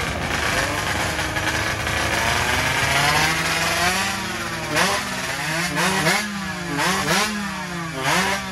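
Tuned 116cc underbone (bebek) drag-racing motorcycles running at full throttle: engines revving hard, then accelerating with the pitch climbing and dropping several times as the gears are shifted.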